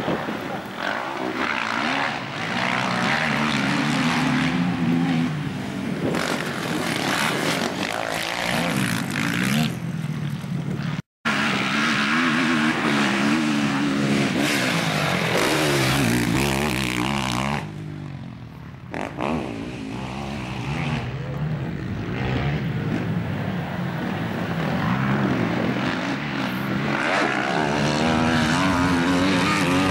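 Racing quad bike engines revving hard, the pitch rising and falling as the riders accelerate, shift and back off over the jumps and climbs. The sound cuts out for a moment about eleven seconds in.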